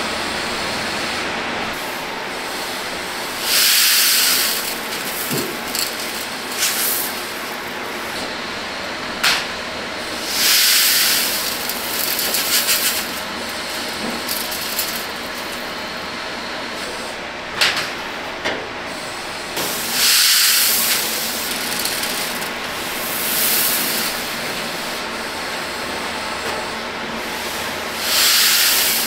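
Dried snack pellets sliding off perforated metal trays into a steel bin, a rushing rattle of about a second, about five times. Sharp metal knocks of the trays come in between, over a steady hiss.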